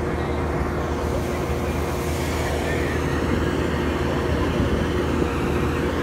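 Farm machinery engine running steadily under load, a constant mechanical drone with a low, even hum.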